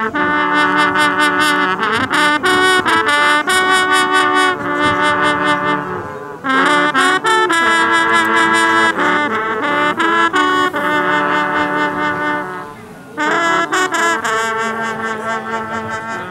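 An ensemble of French hunting horns (trompes de chasse) playing a fanfare together in three long phrases, with short breaks about six seconds in and again near thirteen seconds.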